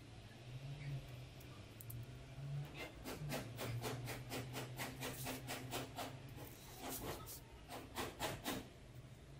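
Rapid back-and-forth scratching strokes on a small piece of balsa wood, about five a second, in two runs from about three seconds in, over a faint low hum.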